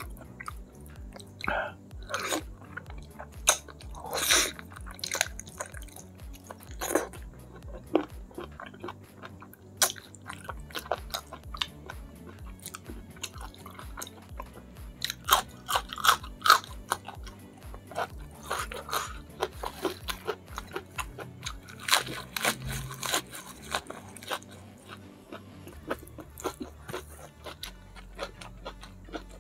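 Close-miked chewing and crunching of a mouthful of food eaten by hand, with crisp bites and wet mouth sounds. There is a run of loud crunchy bites about halfway through as a raw green chili is bitten.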